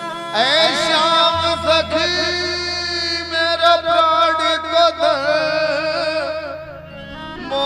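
Hindi devotional bhajan music. A melody line opens with sweeping rising glides, then plays wavering notes with vibrato over steady low bass notes. It dips briefly near the end before coming back in.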